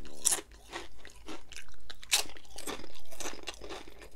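Close-miked crunching and chewing of a crisp chip, a string of sharp crunches, the loudest about a third of a second in and again about two seconds in.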